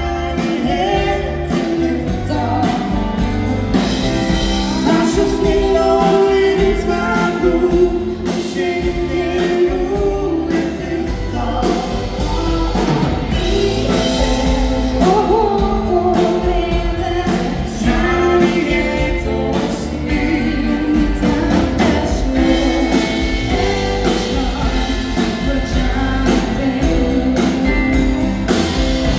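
Live dance-band music: a woman singing lead over acoustic guitar, electric bass, keyboard and drum kit, with a steady beat throughout.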